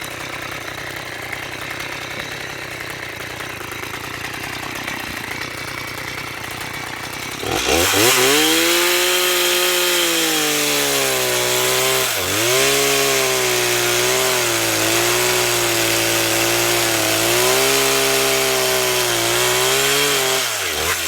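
Stihl MS-170 two-stroke chainsaw running low for several seconds, then throttled up about a third of the way in and held at high revs while cutting through an ash log, the pitch briefly dropping as the chain bogs in the wood, then falling off as the throttle is released near the end.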